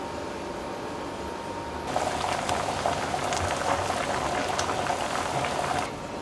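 Pork belly simmering in a thick soy-based braising sauce in a saucepan, the sauce bubbling and popping in a dense crackle, starting about two seconds in and cutting off abruptly near the end. Before it, a steady hum with a faint high tone.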